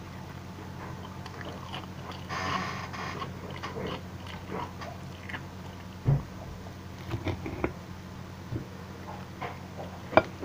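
Someone eating close to the microphone: chewing, with a knife and fork clicking and scraping on a china plate, a sharp knock about six seconds in and another loud click near the end.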